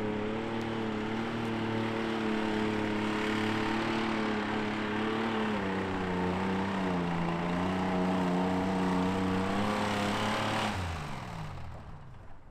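Off-road hill-climb vehicle's engine held at high, steady revs under load, the pitch sagging a little about halfway through. Near the end the revs fall away and the sound dies down.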